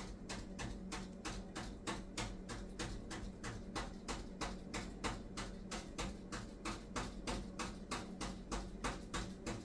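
Rapid, even clicking, about four clicks a second, over a steady low hum from the gas range with its oven broiler running. Both start together and keep a constant rhythm.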